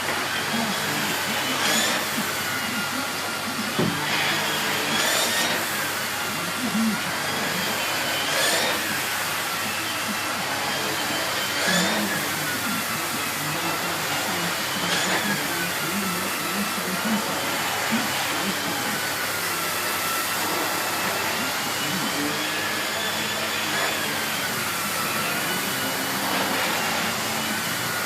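Miele S8 canister vacuum cleaner running steadily, with a rush of air and a motor whine that keeps rising and falling in pitch as it is worked over the floor. Brief knocks come every few seconds.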